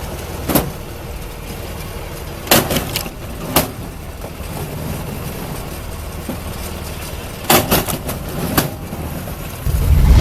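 Engine-driven log splitter running steadily, with a series of sharp cracks and knocks as logs are split: one, then a quick cluster, one more, then another cluster. A louder low rumble comes in just before the end.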